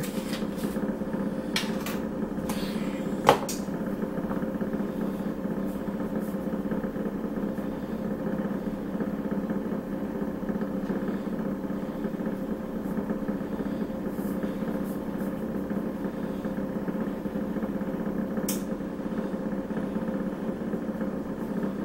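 Steady motor hum with a few even pitched tones, like a running fan. A few sharp clicks come in the first four seconds, the loudest about three seconds in, and one more near the end, as a spice jar's lid is opened and handled.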